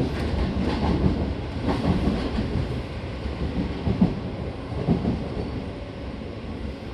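Seibu 6000 series electric train running, heard from inside the car: a steady rumble with a few sharp wheel knocks over rail joints, growing quieter near the end as the train slows.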